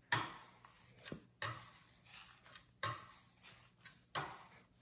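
Metal bench scraper scraping and knocking against a stone countertop as it is pushed under a ball of sourdough to round and tighten it. About eight short scrapes, each cutting in sharply and fading quickly.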